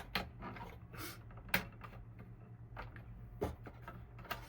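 Faint, scattered light clicks and taps of parts being handled inside an open Dell OptiPlex 3020 small-form-factor desktop case.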